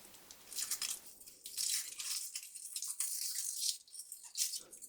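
Foil wrapper of a chocolate surprise egg crinkling and rustling in irregular patches as the egg is unwrapped by hand.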